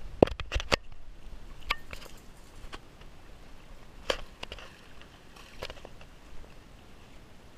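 Scattered knocks and clicks: a quick cluster of about four in the first second, then single ones every second or so. This is handling and footstep noise on a body-worn action camera as its wearer moves along a muddy creek bank.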